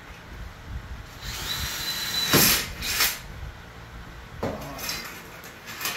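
A power drill runs for about two seconds, with a steady high whine at the start, followed by two short scraping bursts.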